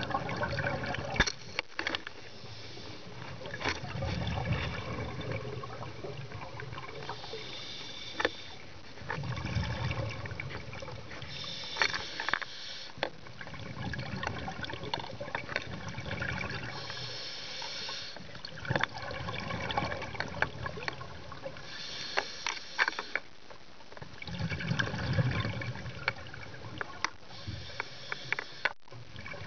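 Scuba regulator breathing underwater, in slow regular cycles about every five seconds: a short hiss on each inhale, then a low bubbling rumble as the exhaled air escapes. Scattered clicks and knocks are heard throughout.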